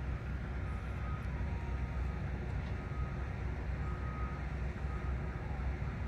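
Diesel freight locomotives idling in the distance, a steady low rumble. Faint short high beeps come and go over it, three or four times.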